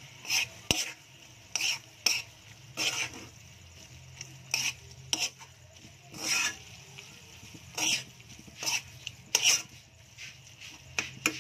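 A spatula scraping and stirring shrimp paste (bagoong alamang) with pork and chopped chilies in a metal wok. About a dozen scrapes come at an uneven pace, roughly one a second, over a light sizzle and a low steady hum.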